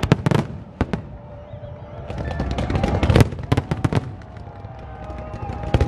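Aerial fireworks display: sharp bangs of shells bursting, with a cluster at the start and a denser run of crackling and bangs that builds to its loudest about three seconds in, then more bangs near the end.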